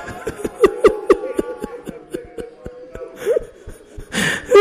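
A person sobbing: short, irregular catches of breath and choked vocal sounds, several a second, with a brief rising whimper a little after three seconds in.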